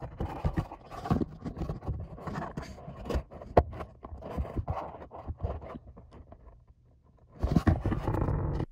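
Plastic air filter housing and a paper panel air filter handled right at the microphone: irregular scrapes, rubs and light knocks as the camera is set inside the box. Near the end comes a louder, denser scrape that cuts off suddenly.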